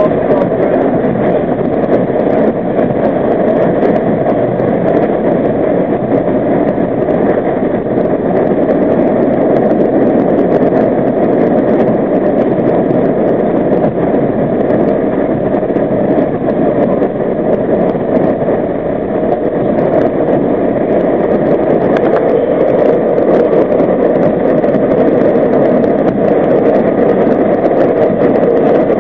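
Loud, steady roar of an R32 subway train running through a tunnel, from its wheels on the rails and its running gear.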